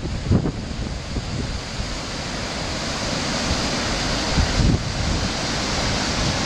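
Fast river swollen after heavy rain, rushing and churning over rocks in a narrow gorge below a waterfall: a steady, loud rush of water. Gusts of wind buffet the microphone briefly near the start and again past the middle.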